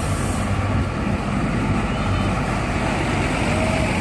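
Bus engine running with a steady deep rumble.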